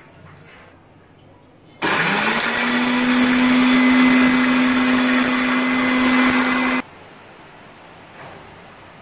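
Electric blender's dry-grinding jar running for about five seconds, grinding dry-roasted whole spices into garam masala powder. The motor spins up quickly about two seconds in, runs steadily, then cuts off suddenly.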